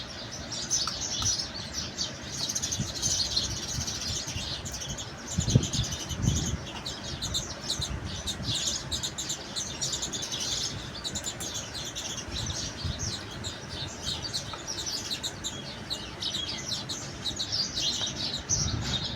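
Many small birds chirping busily and continuously, with a couple of dull low knocks about six seconds in.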